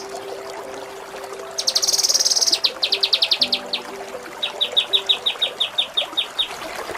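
Kinoi songbird singing: about one and a half seconds in, a fast buzzy high trill, then a quick run of about ten chips, followed by a steady series of about fourteen evenly spaced whistled notes at about seven a second.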